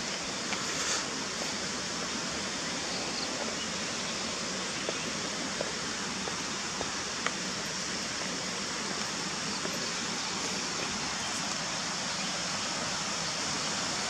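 Steady rushing of running water from a forest stream or waterfall, with a few faint ticks.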